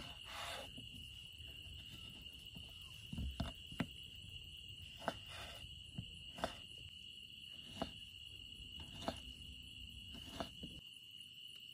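Kitchen knife chopping a tomato on a wooden cutting board: a series of short sharp knife taps on the board, irregular, roughly one a second. Behind it, night insects chirr steadily in one high tone.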